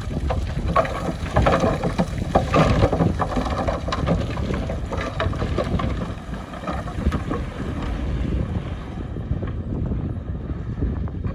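Heavy diesel earth-moving machinery running with a steady low rumble, wind buffeting the microphone, and many scattered knocks and crackles, thickest in the first half.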